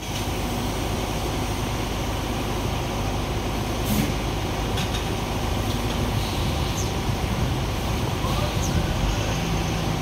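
Heavy truck's diesel engine running steadily, with a short knock about four seconds in.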